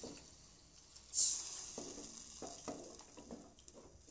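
Onion-tomato masala in an aluminium kadai sizzling as water is added, with a short, loud sizzle about a second in, then a spatula stirring and scraping in the pan in a series of short strokes.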